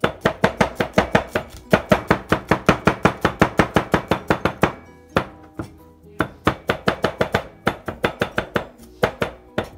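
Chef's knife mincing garlic on a cutting board: rapid chops at about five a second. The chopping stops for about a second and a half midway, then resumes.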